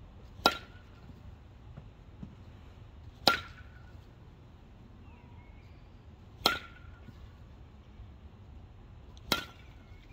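DeMarini CF Zen Drop 5 composite baseball bat striking soft-tossed balls: four sharp cracks about three seconds apart, each with a brief ring.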